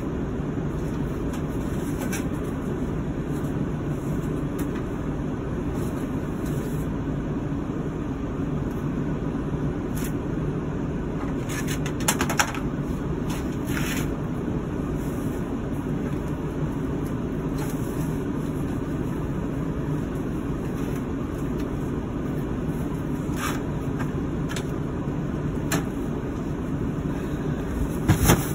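Steady low rumble of a running motor, with a few scattered light knocks and clicks: a small cluster near the middle and another just before the end.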